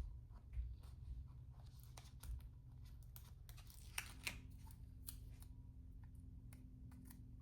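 Faint paper crackles and light clicks of a planner sticker being peeled from its sheet and handled, with a few sharper ticks about four and five seconds in.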